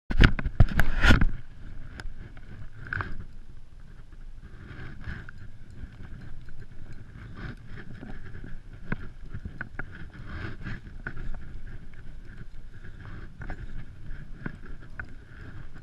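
Spinning reel on a fishing rod being wound in short spells, with handling clicks and knocks throughout and a burst of loud knocks in the first second. Wind noise on the microphone underneath.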